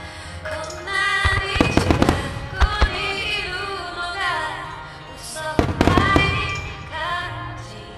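Aerial firework shells from Nomura Fireworks bursting in rapid volleys over steady music. There are two clusters of bangs, one from about a second in to three seconds and another near six seconds.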